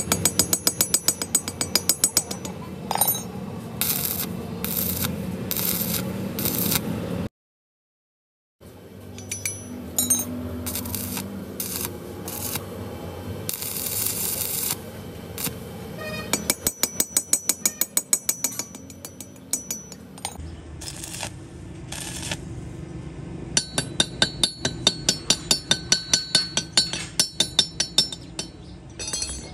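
Stick (arc) welding on a steel gear tooth: the electrode arc crackles and spits continuously. In the last few seconds a hammer taps rapidly at the weld on the steel gear, about four ringing metallic strikes a second.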